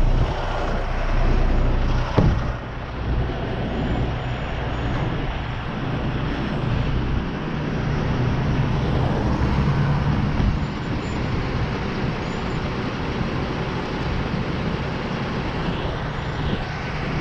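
Tow truck's engine running steadily, with one sharp knock about two seconds in.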